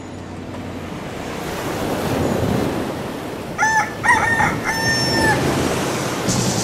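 A rooster crowing once, a three-part crow whose last note is the longest. Before it there is a rushing noise that grows steadily louder.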